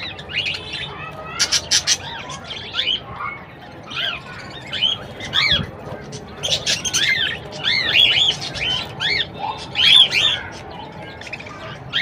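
A flock of budgerigars chattering, many short rising-and-falling chirps and squawks overlapping all the time, with a quick run of sharp calls about a second and a half in.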